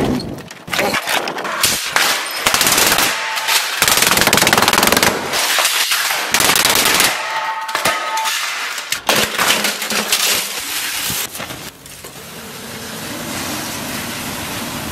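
Rapid, repeated hard impacts and cracking of a plastic printer being smashed apart, with a shovel hitting the pieces on concrete. About twelve seconds in it gives way to the steady rush of the printer burning in large flames.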